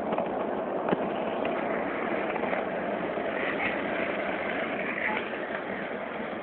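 Skateboard wheels rolling fast down an asphalt street: a steady rolling rumble, with one sharp click about a second in.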